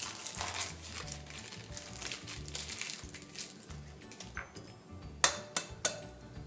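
Soft background music with low bass notes moving step by step. A few sharp clicks come a little past five seconds in.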